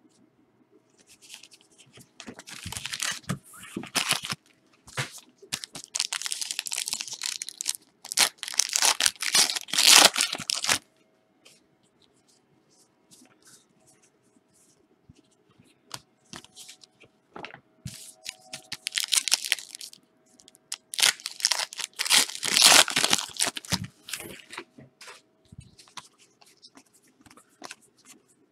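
Plastic trading-card wrappers being torn open and crinkled by hand, in two long runs of crackling with a quieter lull between them.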